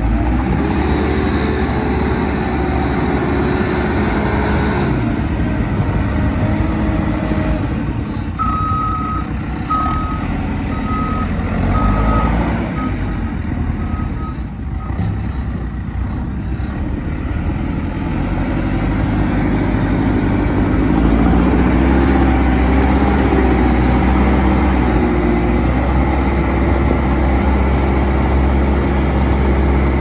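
2010 JCB 3CX backhoe loader's diesel engine running while the machine drives and maneuvers, its engine speed rising and falling near the start and again past the middle. For several seconds before the middle, the reversing alarm beeps about once a second.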